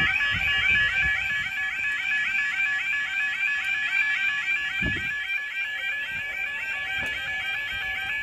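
UK level crossing yodel alarm sounding continuously, a rapid repeating two-tone warble, with a low thud about five seconds in.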